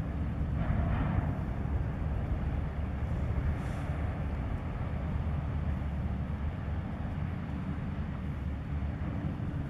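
Steady low rumble of an inland cargo ship's diesel engine, with a short hiss about a second in.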